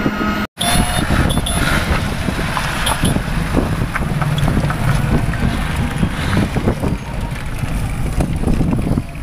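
Wind rumbling on a handheld phone microphone, with a few light knocks from handling. There is a brief dropout to silence about half a second in.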